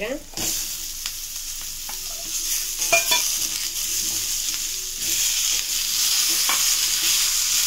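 Cubed chayote and tomato pieces sizzling as they fry in hot oil in an iron kadai, stirred with a steel spoon that clicks against the pan a few times. The sizzle grows louder about five seconds in, as the wet tomatoes go in.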